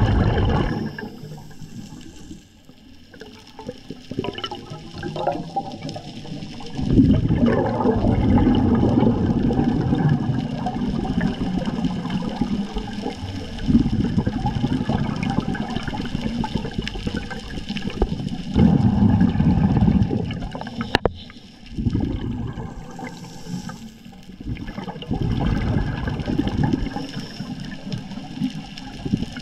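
Scuba regulator breathing underwater: repeated bursts of exhaled bubbles gurgling past, each lasting a few seconds, with quieter gaps between breaths.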